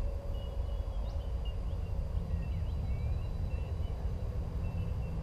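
Outdoor ambience: a steady low rumble with faint, short bird chirps above it.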